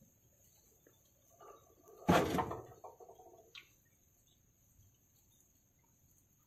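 Crickets chirping steadily, with one sudden knock about two seconds in that trails off in a short rattle, then a light click.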